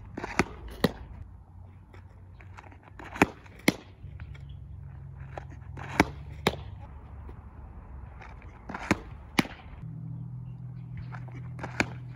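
Fast-pitch softball pitches, one about every three seconds. Each gives a pair of sharp pops about half a second apart: a slap at the windmill release, then the ball smacking into the catcher's mitt. A low steady hum lies underneath.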